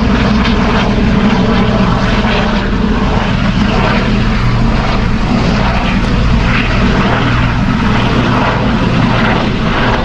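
Propeller plane passing over, its engine running steadily with a low drone under a loud, even rush of noise.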